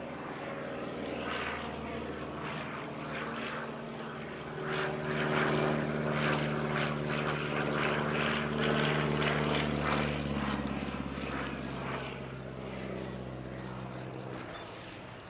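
VL Viima II biplane's seven-cylinder Siemens-Halske radial engine and propeller droning steadily in flight overhead. The sound swells in the middle and fades away near the end.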